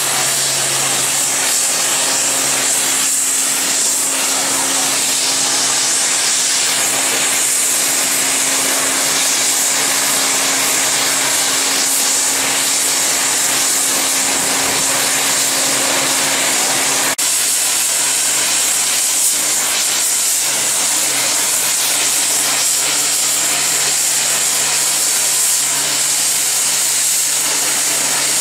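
Safety valve of BR Southern Region rebuilt light Pacific 4-6-2 steam locomotive 34046 Braunton blowing off: a loud, steady hiss of escaping steam, the sign that the boiler is at full working pressure.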